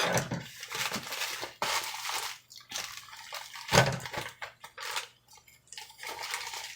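Unboxing handling sounds: packing material rustling and objects being moved about, with a sharp knock a little under four seconds in.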